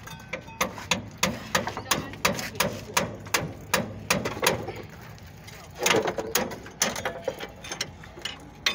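Metal hand tools clicking and knocking on metal fittings under a vehicle: a quick run of sharp clicks, several a second, with a short lull about five seconds in before a louder cluster.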